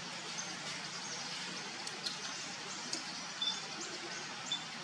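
Outdoor ambience: a steady hiss with a few light ticks, and brief high chirps about three and a half and four and a half seconds in.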